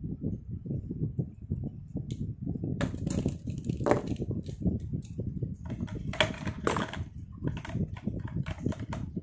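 Handling sounds of writing with a fineliner pen in a notebook: a dull low rumble of small knocks, then from about three seconds in a run of sharper clicks and rustles as the pen is lifted off the page and set down.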